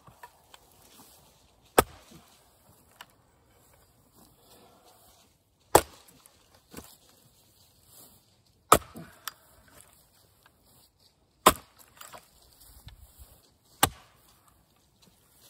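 An axe splitting green, freshly cut American persimmon rounds on a chopping block: five sharp chops a few seconds apart, with lighter knocks in between.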